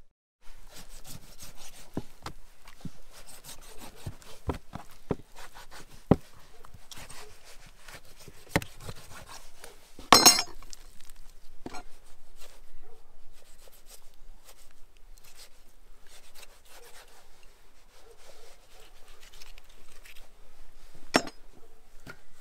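Knife cutting and scraping through raw goat meat and along the bones on a wooden table, with scattered short knocks as pieces and blade meet the table. A sharper, louder knock comes about ten seconds in and another near the end.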